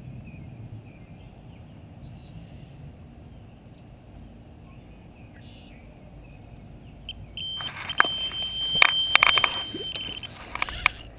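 Quiet lakeside air with light wind, then about seven seconds in a carp-fishing bite alarm starts beeping: a steady high electronic tone for a couple of seconds, signalling a run as a fish takes the bait. Rapid clicks and clatter come with it as the rod is grabbed.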